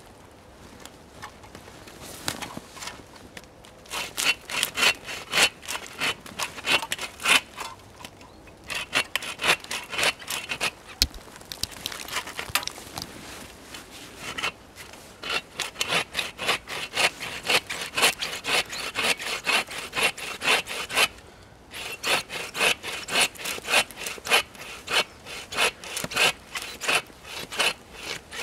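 Hand saw cutting through a thin standing tree trunk: quick back-and-forth rasping strokes, several a second, in several bouts broken by brief pauses.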